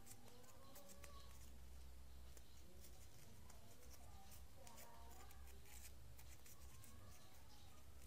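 Faint crinkling and ticking of origami paper being creased and folded by hand, over a low hum.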